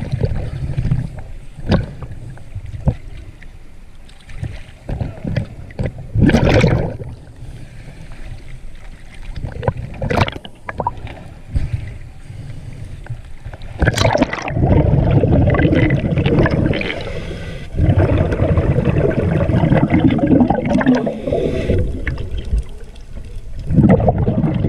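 Sea water lapping and sloshing against a camera at the surface, with a few sharp splashes and a longer stretch of heavy churning water.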